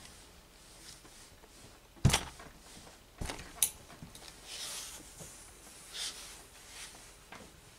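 Gravity-feed steam iron pressing fusible interfacing onto collar pieces: a loud thud about two seconds in and another a second later as the heavy iron comes down on the pressing table, a sharp click, then a few brief hisses as it is worked across the fabric.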